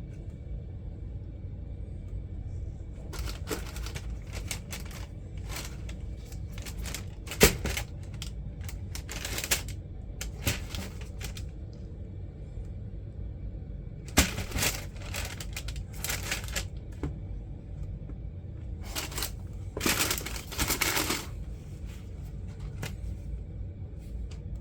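Irregular bursts of rustling and handling noise from a sneaker box and its packaging, with one sharp click about seven seconds in, over a steady low rumble.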